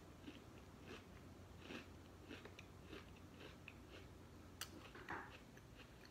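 A person chewing a crunchy thin cookie, a tiramisu Oreo thin, with the mouth closed: faint, irregular crunches, with a sharper click near the end.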